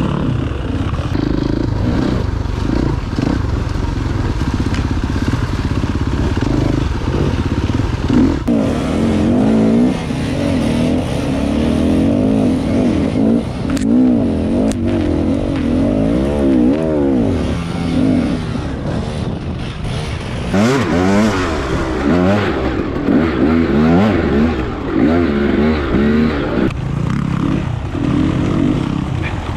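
Dirt bike engine revving up and easing off again and again as it is ridden over rough trail, with a few sharp knocks and rattles from the bike.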